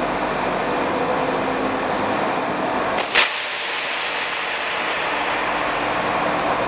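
A single sharp gunshot crack about three seconds in, over a steady rushing noise.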